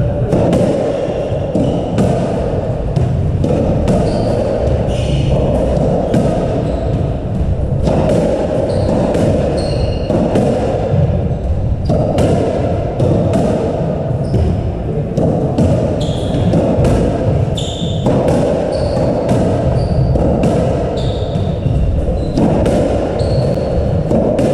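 A squash rally: the ball cracking off rackets and thudding against the walls again and again at an irregular pace, with short squeaks of court shoes on the wooden floor, over a steady background noise in an echoing court.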